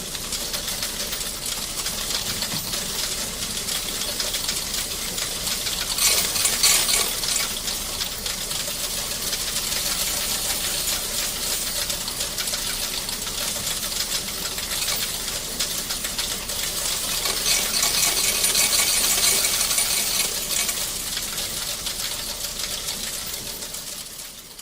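Mechanical adding machine running with a dense, rapid clatter of clicks, louder for a moment about six seconds in and again for a few seconds later on.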